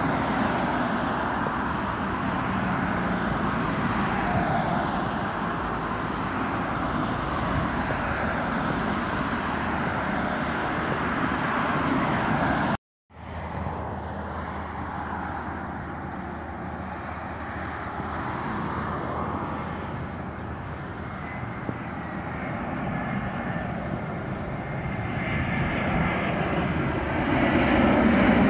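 Airbus A320 jet engines: a landed A320 rolling out on the runway gives a steady engine noise. The sound cuts off suddenly about 13 seconds in. A second A320 on landing approach follows, its engine noise growing louder near the end.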